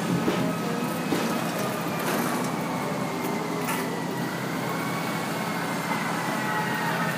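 A motor vehicle engine running steadily, with a low hum and a thin whine that slowly drops in pitch, and a few light clicks.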